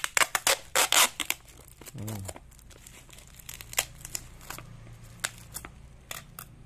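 Black plastic parcel wrapping and clear tape being torn open, crackling and crinkling, loudest and densest in the first second and a half, then in scattered crackles.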